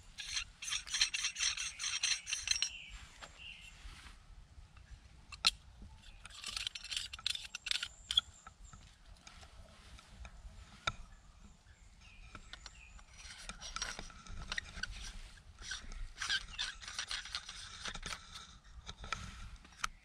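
Rapid scraping, rasping strokes in three spells separated by pauses, the last the longest, with a couple of sharp clicks in between.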